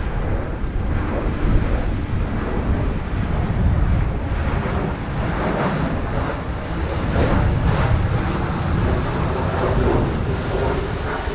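Airbus A320 airliner's jet engines sounding steadily as it comes in to land.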